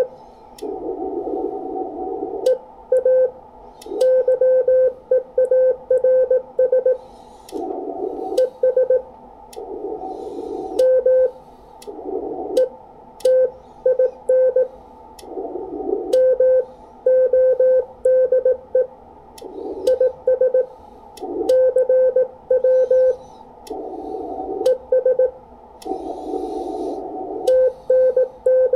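Morse code (CW) sidetone from an ICOM IC-7300 transceiver as code is sent on an iambic paddle. It is a steady mid-pitched tone keyed in dots and dashes, character after character. A band of receiver hiss comes up in the gaps between groups.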